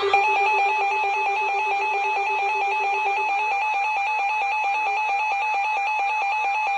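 Emergency Alert System attention tone: a steady electronic alert signal that warbles rapidly back and forth between two pitches. A fainter, lower steady tone beneath it stops about three seconds in.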